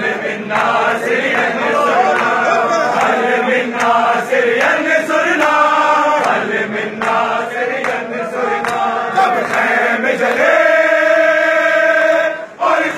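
A large crowd of men chanting a Shia noha in unison, with sharp slaps of chest-beating matam through it. Near the end the chant holds one long note, drops out briefly, and starts again.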